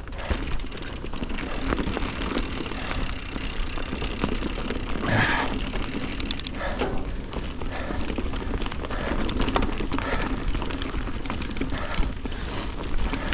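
Mountain bike ridden along a dirt trail: tyre noise with scattered rattles and knocks from the bike over rough ground, under steady wind rumble on the microphone.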